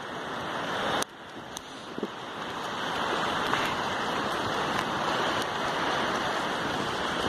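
Steady rushing of shallow surf washing over a sandy beach. It drops off suddenly about a second in, then builds back up, with a few faint clicks through it.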